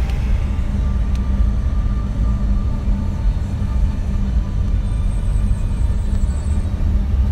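Steady low rumble of engine and tyre noise inside a moving car's cabin.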